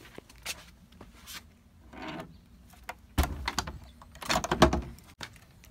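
A wooden fence gate being pushed and rattled, which is locked: scattered clicks and knocks, then a louder run of thuds and scrapes a little past halfway.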